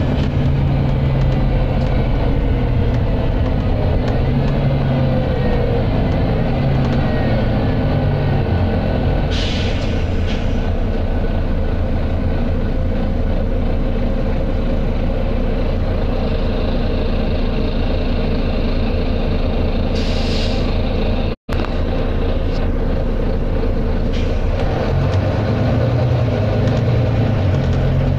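Volvo B9TL double-decker bus's six-cylinder diesel engine running under way, heard from on board, with a steady drone and drive noise. Two short hisses of air from the bus's air system break in, about ten seconds in and again about twenty seconds in.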